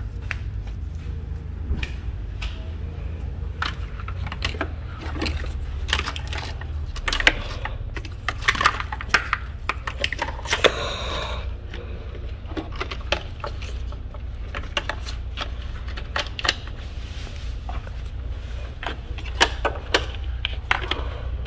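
Irregular plastic clicks and rattles of engine wiring-harness connectors being unplugged and handled, with a short rustle about halfway through, over a steady low rumble.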